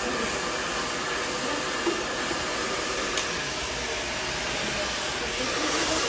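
Hand-held hair dryer blowing steadily during a round-brush blow-dry, with a couple of faint clicks.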